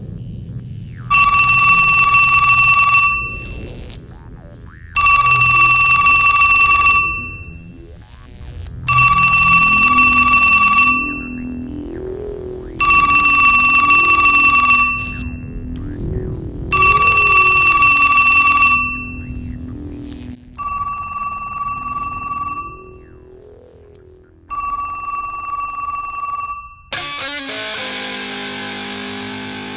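Landline telephone ringing with an electronic tone over background music: seven rings, each about two seconds long and coming every four seconds, the last two fainter. Near the end a harsh, hissing wash of sound comes in.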